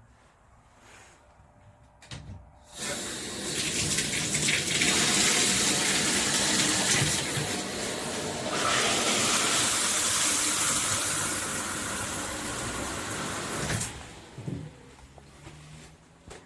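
Water spraying from a handheld shower head, a steady rushing hiss that starts about three seconds in and shuts off abruptly a couple of seconds before the end, followed by a few light knocks.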